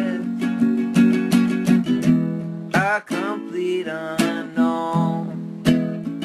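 Music: an acoustic guitar strummed in a steady rhythm between sung lines of a song.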